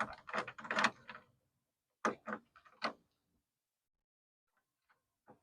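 Clicks and knocks from handling a car door and its parts: a quick run of short knocks in the first second, two or three more around two to three seconds in, then a faint click near the end.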